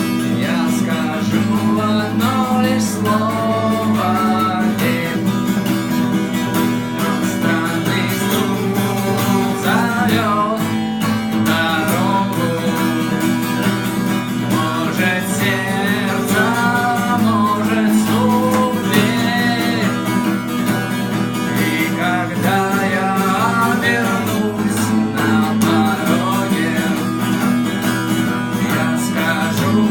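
Guitar playing an instrumental passage of the song: a melody line with bending, sliding notes over a steady low accompaniment.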